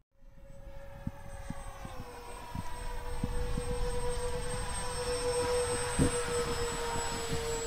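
Electric ducted fan of a 3D-printed F-14 Tomcat model jet in flight, a steady whine that dips slightly in pitch about two seconds in and grows louder as it passes closer. A brief thump comes about six seconds in.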